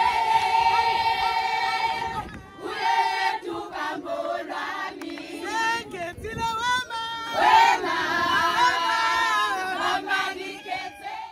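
A group of women singing together, many voices at once, with the song rising and falling in pitch and pausing briefly a few times.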